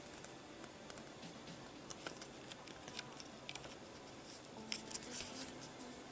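Pages of a thin printed booklet being flipped through quickly: faint light paper flicks and rustles, with a louder riffle of pages about five seconds in.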